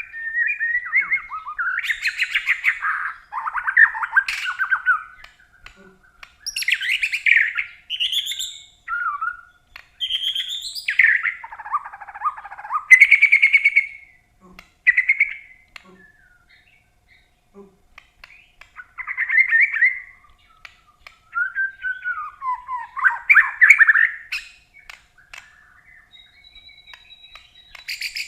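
A caged songbird singing in phrases of fast, varied chirps, trills and gliding notes, with short pauses between phrases.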